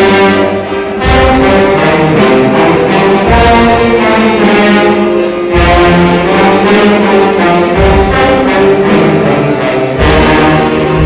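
Church orchestra and band playing an instrumental overture, with brass carrying sustained chords and deep bass notes coming in about every two seconds.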